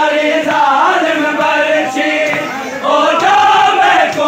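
A crowd of men chanting a Punjabi noha, a Muharram lament, together in a loud sung refrain.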